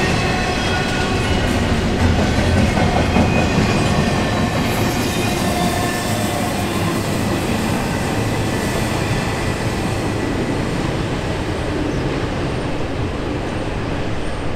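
Double-stack intermodal container cars rolling past: a steady rumble and rattle of steel wheels on the rails, with thin high wheel squeals running through it.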